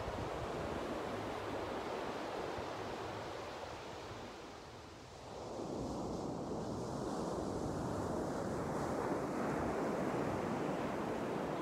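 Surf breaking and washing up on a sandy beach, a steady rushing wash that fades for a moment about halfway through, then swells back.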